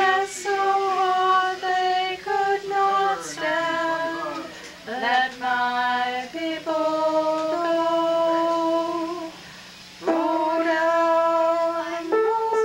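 Two women singing a slow tune together, holding long notes, with a short pause between phrases about three quarters of the way through.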